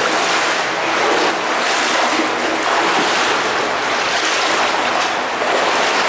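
Water of an underground river rushing through a concrete collector tunnel, a steady loud rush without pause.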